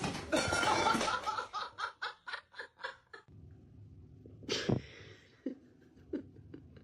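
A person laughing hard, a run of 'ha' bursts that slow down and fade over about three seconds. After a cut comes one short sharp burst and a few faint clicks.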